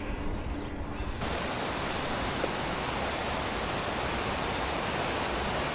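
Steady rushing noise, an even hiss across the whole range that comes in abruptly about a second in, replacing a muffled low hum.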